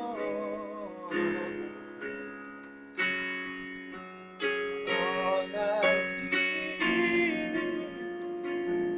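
Instrumental passage of a worship song: guitar and keyboard chords struck about every second and left to ring, after a sung note with vibrato fades out at the start.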